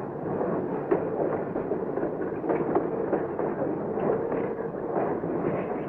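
Railroad freight car rolling down a classification-yard hump on steel wheels: a steady rumble with irregular clanks and knocks, muffled and thin as on an old film soundtrack.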